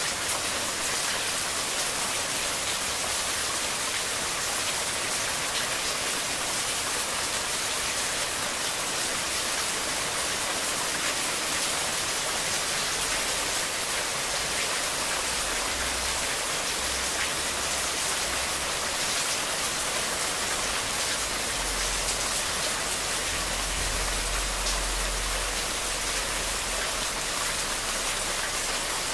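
Steady rain falling on foliage, an even hiss.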